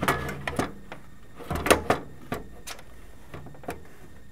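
Irregular knocks and clicks of a power supply unit being handled and fed into a computer case, its metal housing bumping against the case.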